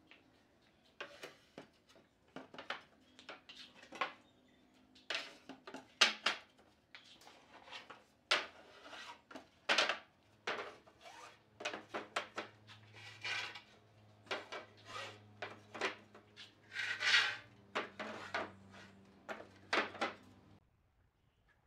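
Wooden boards being set down and slid into place across a bed frame's slats: an irregular string of wood-on-wood knocks and clatters with short scraping slides.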